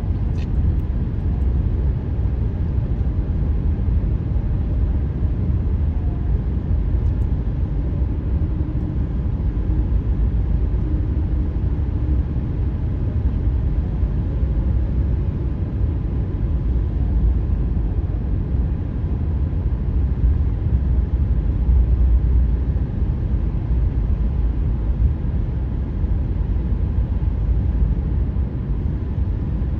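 Car tyres rolling at highway speed on newly laid asphalt: a steady low rumble of road noise, with a faint hum coming and going between about 8 and 13 seconds in.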